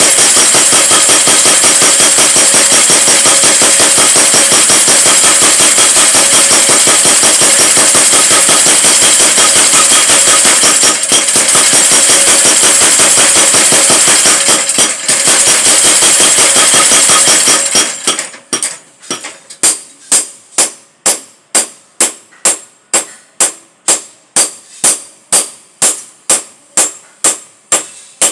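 Power hammer pounding metal in a fast continuous run of blows. About eighteen seconds in, it changes to separate ringing strikes, about two and a half a second.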